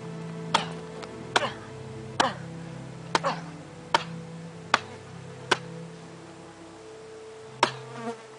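Background music with held low tones and a sharp click beat, about one click every 0.8 seconds.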